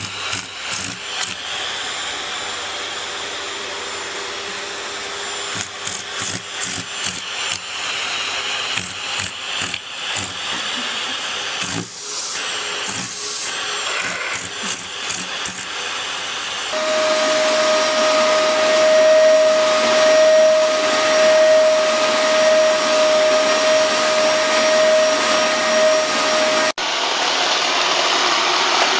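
Vacuum cleaners running across several short clips: first with many knocks and bumps, then a steady high-pitched motor whine, then a cut to a duller rushing of air.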